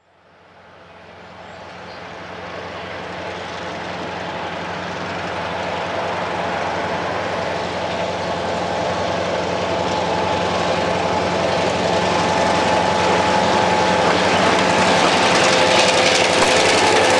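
Two EMD diesel locomotives, a GP7 and an FP9 with 567 two-stroke engines, approaching under power with a train of autorack cars. The engine drone fades in from silence and grows steadily louder, and wheel and rail noise rises as the locomotives draw level near the end.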